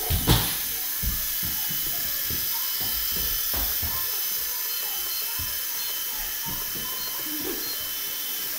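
Century UK Nano CX coaxial micro RC helicopter in flight: its small electric motors and twin rotors give a steady high whine and hiss. A sharp knock sounds just after the start, with a few softer thumps later.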